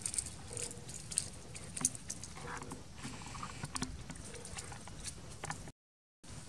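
Dry leaves crackling and rustling in scattered light clicks over a low outdoor background; the sound cuts out for about half a second near the end.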